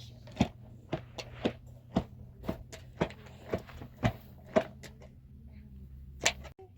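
Sharp knocks repeated at a steady pace of about two a second, pausing after about five seconds before one last knock near the end, over a low steady hum.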